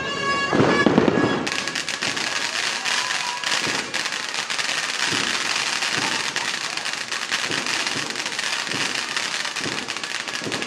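Dense, continuous crackling of fireworks and firecrackers, with many rapid pops close together. A few heavier bangs come in the first second before the crackling fills in.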